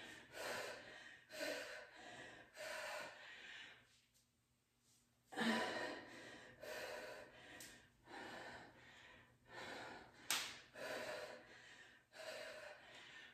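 A woman breathing hard from the effort of kettlebell squats and overhead presses, with short gasping breaths about once a second. The breathing stops for about a second near the middle. A single sharp click comes about ten seconds in.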